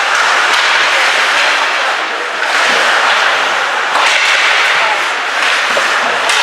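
Ice hockey game in play in a rink: a steady wash of rink noise with several sharp clacks and thuds from sticks, puck and boards.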